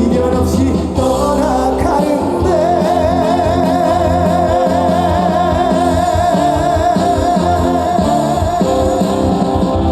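Live trot song with band accompaniment; a long, wavering sung note is held from about two and a half seconds in until near the end.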